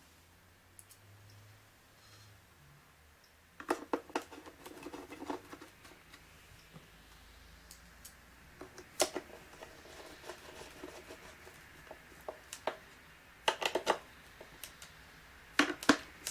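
Screwdriver driving the mounting screws into a digital door lock: scattered clicks and scraping in a few short bursts, the first about three and a half seconds in.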